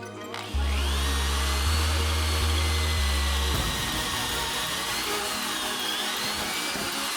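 Electric drill running at speed, drilling out spot welds in the car's sheet-metal body panel; its high whine sags in pitch and recovers as the bit bites, under background music with a heavy bass line that drops out about halfway through.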